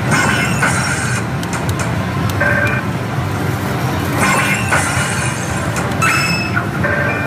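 Pachislot Another God Hades machine playing bright chiming sound effects every second or two as games are added on, over the steady din of a pachinko parlor.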